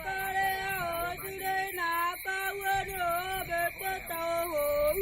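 Background music: a singing voice carrying a slow melody of held notes that slide from one pitch to the next, over a steady high tone.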